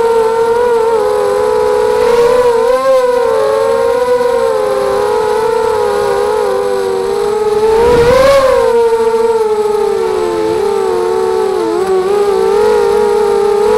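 ZMR250 quadcopter's four brushless motors and propellers whining in flight. Several close pitches waver together with the throttle. About eight seconds in the pitch rises briefly with a rush of air.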